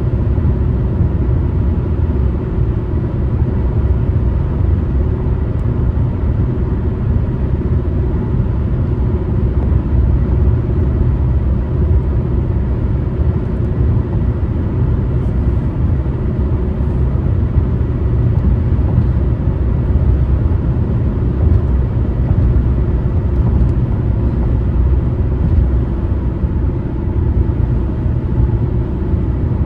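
Car driving steadily on the road: an even, low rumble of tyres and engine with no sudden changes.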